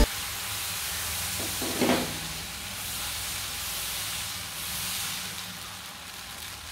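Fermented appam batter sizzling with a steady hiss on a hot non-stick tawa as a ladle spreads it into a round, with one brief louder sound about two seconds in.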